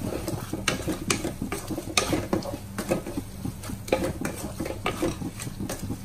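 Wooden spatula stirring a shallot, ginger, garlic and green chilli masala around a metal kadai, with irregular scrapes and knocks against the pan several times a second.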